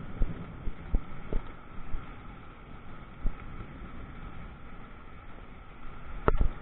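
Steady rain hiss during a thunderstorm, with a few short sharp knocks scattered through it, the loudest near the end.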